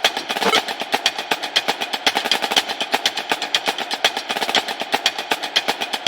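Rapid, uneven train of sharp percussive taps, about ten a second.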